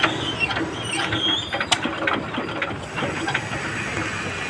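A 10 hp diesel water pump engine being hand-cranked to start: a run of irregular metallic clicks and clatter from the crank handle and engine over the first three seconds or so, over a steady low rumble.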